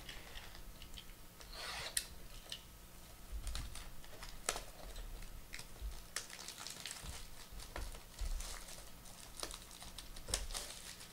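Hands handling and opening sealed trading card boxes: faint, scattered crinkles and tearing of the packaging, cardboard rubbing, and small clicks.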